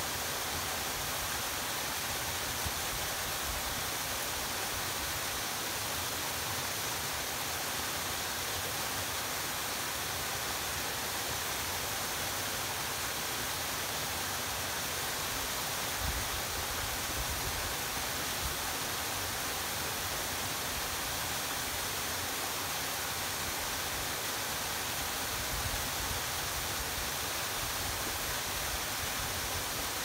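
Two-tiered mountain waterfall pouring steadily down a rock face: a constant, even hiss of falling water.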